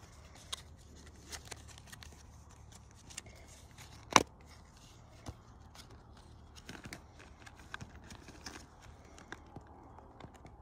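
Hands opening a clear hard-plastic lure package: scattered small clicks and crinkles of the plastic, with one sharp click about four seconds in.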